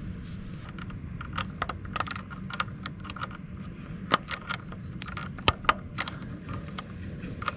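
Irregular light metallic clicks and clinks, a dozen or more, from hand tools and small metal parts being handled while a motorcycle's gear-shift lever is refitted and its bolt tightened. A steady low hum runs underneath.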